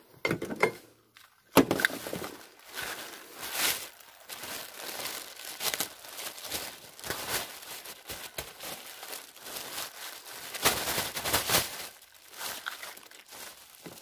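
Thin plastic carrier bag crinkling and rustling in irregular bursts as it is handled with gloved hands.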